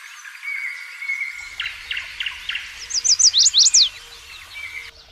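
Birds chirping and singing: a chorus of short chirps and a held whistle, then a quick run of loud, sharp downward-sweeping whistled notes about three seconds in. The background changes abruptly twice, as between spliced recordings.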